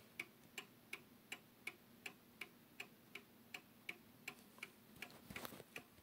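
Sessions beehive mantle clock from the late 1910s ticking faintly and steadily, just under three ticks a second. A brief soft rustle comes about five seconds in.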